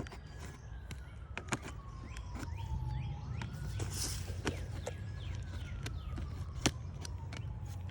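A siren wailing, its pitch sliding slowly down and then back up over a few seconds, twice. Scattered sharp clicks and knocks sound over it.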